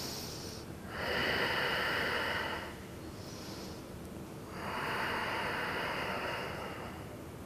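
A woman taking slow, deep yoga breaths, two long breaths of about two seconds each, with a short faint breath between them.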